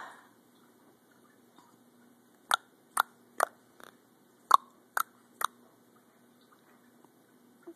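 A person clicking their tongue: six sharp clucks in two runs of three, each run at about two a second, with a short gap between the runs.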